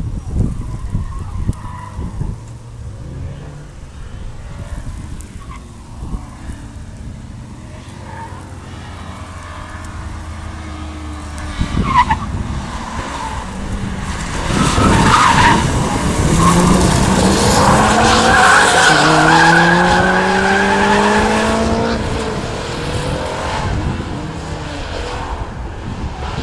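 A sedan driven hard through an autocross cone course. Its engine pitch rises twice and its tyres squeal through the turns, loudest in the second half. Wind rumbles on the microphone at first.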